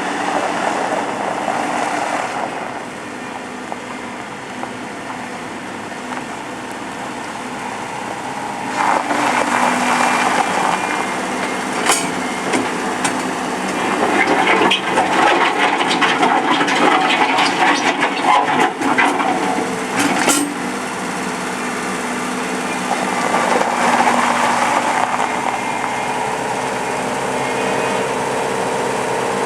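Volvo MC70 skid steer's engine running while the machine is worked, rising in level and turning rougher for two long stretches as it is put under load. A few sharp metallic knocks come in the louder stretch, around the middle.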